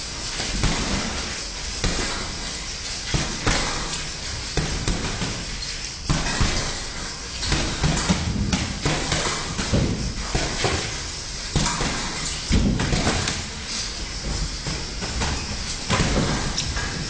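Boxing gloves landing punches in sparring: irregular thuds and slaps, some coming in quick combinations of two or three.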